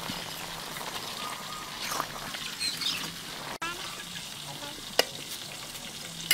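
Long-stemmed greens sizzling in a large wok over a wood fire as a metal spatula stirs them, with a couple of sharp clicks of the spatula against the wok.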